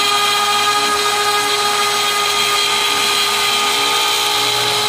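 Small Harbor Freight router on an MPCNC, spinning a dull two-flute upcut spiral bit as it mills into aluminum on a helical plunge: a loud, steady, high-pitched whine.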